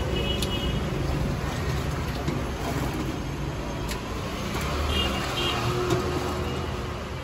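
Steady rumble of road traffic, with faint high tones near the start and again about five seconds in, and a single click about four seconds in.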